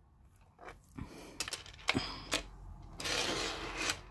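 Sharp little clicks of metal and glass beads and a magnetic clasp being handled, then about a second of hissy rustle as the beaded necklace is laid down on a wooden table.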